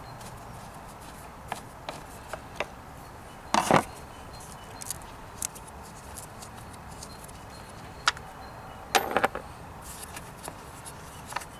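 Scattered clicks and knocks of a Torx T25 tool working on the air filter housing bolts, with two louder clattering bursts about three and a half and nine seconds in.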